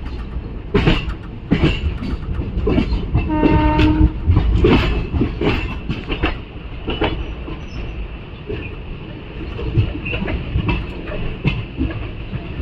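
Passenger express train running along the track, heard on board: a steady rumble with uneven clacks of the wheels over rail joints. A short horn blast sounds about three and a half seconds in.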